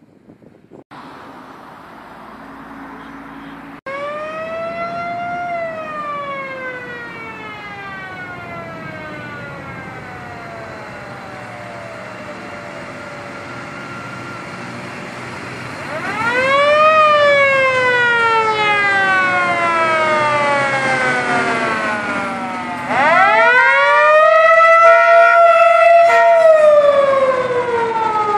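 Sirens of a police escort wailing: three wails start about 4, 16 and 23 seconds in, each rising quickly and then falling slowly over several seconds. Each wail is louder than the one before, and a second siren overlaps near the end.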